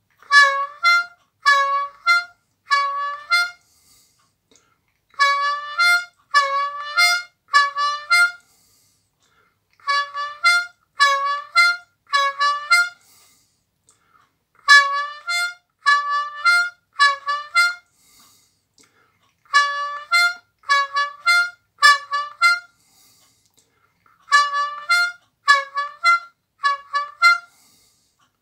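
C diatonic harmonica playing a triplet exercise on draw notes: the 4 draw bent a half step, the 4 draw, then the 5 draw, over and over. The player breathes triplet phrases of a few beats each, with a short pause between phrases roughly every five seconds.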